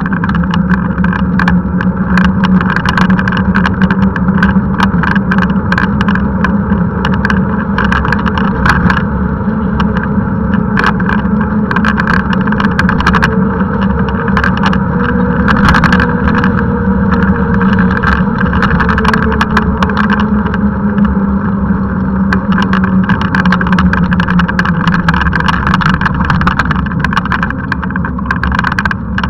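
Wind and road noise on a handcycle-mounted action camera while riding on tarmac: loud, steady noise with frequent small clicks and rattles from the handcycle.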